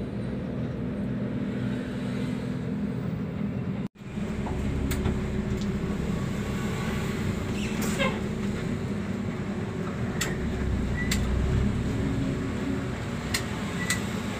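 Inside a moving intercity coach: the bus's diesel engine runs with a steady hum over road rumble, with a few short clicks and rattles from the cabin. The sound cuts out for a moment about four seconds in.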